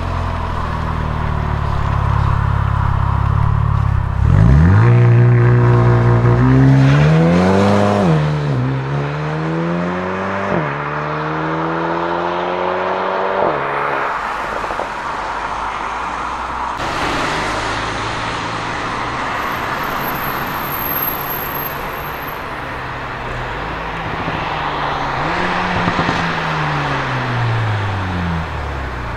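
Mercedes-AMG CLA35 4Matic+'s turbocharged 2.0-litre four-cylinder through a Milltek aftermarket exhaust, pulling away at full throttle. The pitch climbs and drops sharply at each of about three dual-clutch upshifts, then fades into the distance. Near the end the engine is heard again, its pitch rising and falling as the car comes back.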